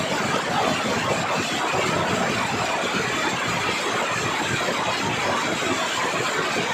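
Kymco Xciting 400i maxi-scooter at full throttle near its top speed: a steady rush of wind over the microphone, with the single-cylinder engine running under it.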